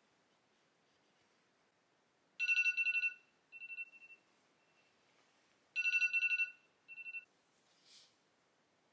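iPhone alarm going off: two bursts of rapid, high-pitched pulsing beeps about three seconds apart, each followed by a shorter, quieter burst.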